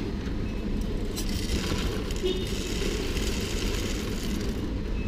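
Steady low rumble of shop background noise, with rustling from about one to four seconds in as fabric brushes close against the microphone.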